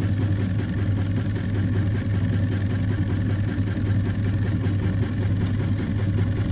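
Small 7 kg twin-tub washing machine running, its motor giving a steady low hum.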